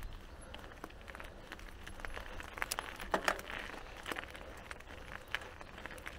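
Mountain bike rattling and clattering over a rough trail: irregular clicks and knocks, a few louder ones about three seconds in, over a steady low rumble.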